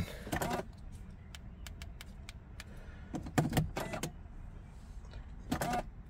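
Key being worked in a Mercedes W211's electronic ignition switch: a run of small, sharp clicks, mostly in the middle of the stretch, with a few short faint pitched sounds in between.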